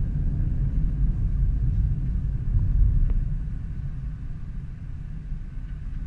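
Thunder rumbling low and long, swelling about three seconds in and then dying away.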